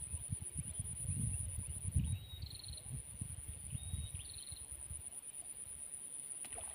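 Wind rumbling in uneven gusts on the microphone, under a steady high-pitched insect drone. A bird calls twice, each call a short flat note followed by a brief rattling trill.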